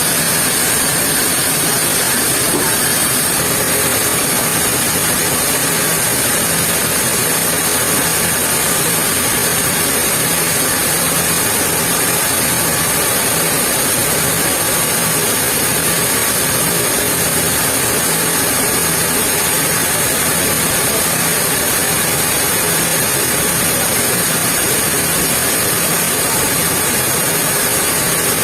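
Sawmill machinery running steadily, a continuous mechanical noise with a constant high hiss that does not change.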